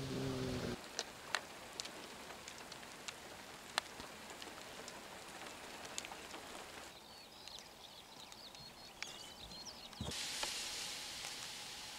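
Light rain dripping, with scattered drops ticking, after a downpour. Faint high bird chirps come in about seven seconds in, and a louder steady hiss sets in about ten seconds in.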